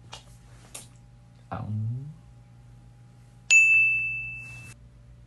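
A bright electronic ding from a phone's word-scramble face filter about three and a half seconds in, ringing and fading over about a second; it marks the scrambled word being solved. Before it there is a short vocal sound and a couple of faint clicks.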